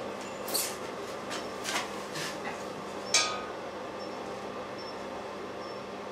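Electric blower fan of a gas forge running with a steady hum and hiss. Over it come a few short rustling noises and one sharp click about three seconds in.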